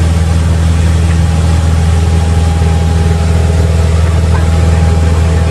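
Cessna 172's piston engine and propeller droning steadily in the cockpit, with a constant rush of airflow noise, on final approach to land.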